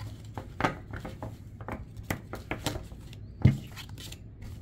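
A deck of tarot cards being shuffled by hand: a run of quick soft slaps and rustles of card on card. About three and a half seconds in there is one louder thump.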